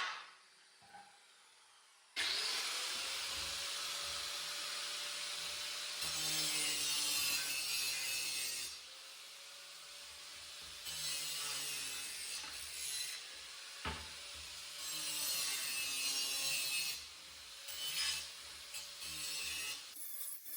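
Angle grinder spinning up about two seconds in, then grinding on steel plate, the gritty noise easing off and coming back several times as the disc is lifted and pressed on again, with a sharp click partway through.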